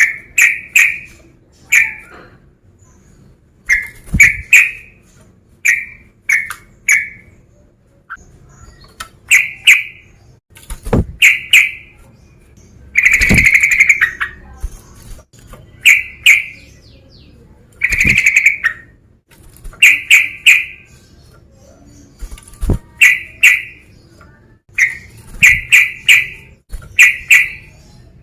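Male yellow-vented bulbul (trucukan) singing loud, short bubbly phrases, some in quick runs of two or three, every second or two, with one longer phrase about halfway through.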